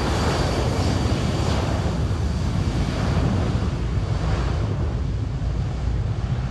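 Delta Boeing 757's twin jet engines at takeoff thrust as it accelerates down the runway: a steady low rumble, with wind buffeting the microphone.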